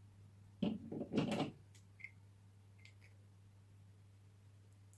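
Small plastic toy packaging being handled and peeled: a brief rustle and knocks about a second in, then a few faint clicks.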